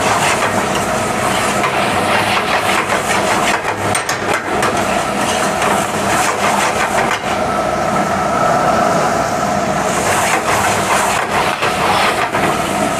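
Steel ladle scraping and knocking in a steel pan as a thick paneer gravy is stirred and tossed over a high gas flame, many quick metal scrapes over a steady loud noise.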